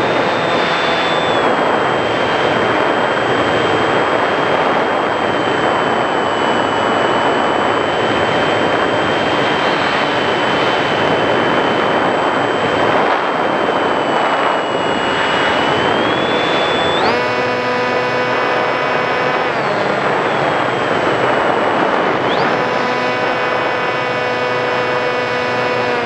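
Electric motor and propeller of a Sky Surfer RC glider whining steadily under heavy wind rush on its onboard camera. About two-thirds of the way in the whine jumps higher in pitch, drops back briefly, then rises again near the end.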